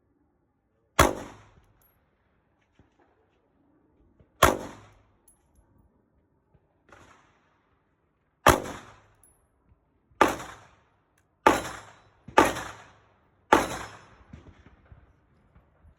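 Firearm shots: seven loud reports, each with a short ringing tail, plus one fainter shot. The first three are several seconds apart, and the last four come faster, about a second apart.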